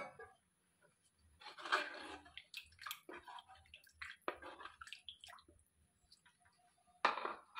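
Thin, watery curry gravy being stirred in a pan with a spatula: irregular wet swishing and sloshing strokes, the strongest about two seconds in and again near the end.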